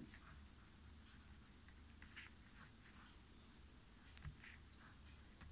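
Faint scratching of a pen writing on paper, in several short separate strokes.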